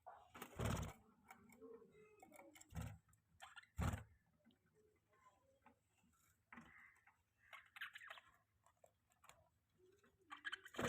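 Faint sounds of pet budgies: scattered sharp clicks and taps, four of them louder, with a few soft, short chirps in between.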